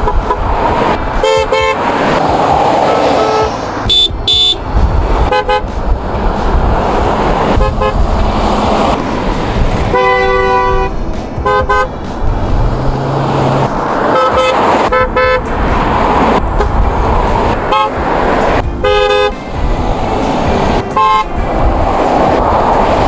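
Car horns honking at irregular intervals, some as short single toots and some in quick pairs, with one longer blast about ten seconds in, over steady traffic noise.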